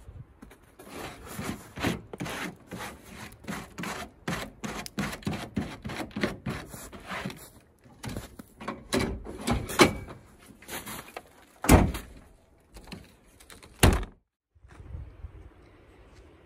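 Gear being handled in the back of a pickup truck: a long run of irregular knocks, rubs and clatters, with a few sharp thumps in the second half. The sound cuts off abruptly and is followed by a faint steady hiss.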